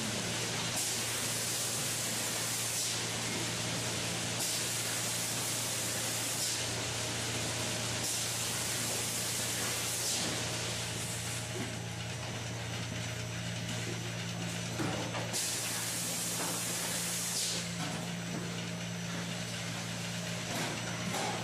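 Rotary goat milking parlour running: a steady low machinery hum with a high hissing burst of about two seconds coming several times, roughly every three to four seconds at first.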